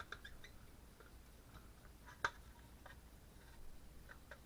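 Faint, scattered clicks and light taps from handling a fire alarm notification device and its packaging, with one sharper click about two seconds in.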